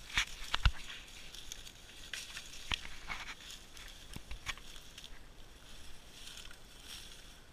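Footsteps crunching through dry leaf litter and fallen sticks, with irregular sharp cracks of twigs snapping underfoot, several in the first second and a few more later.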